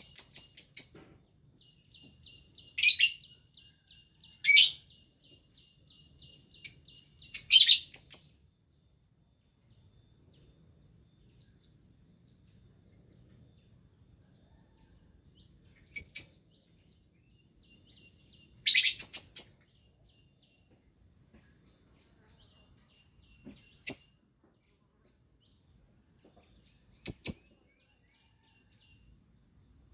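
Small birds chirping in short, sharp bursts every few seconds, with longer quiet gaps in the second half. A faint rapid trill runs underneath for the first several seconds.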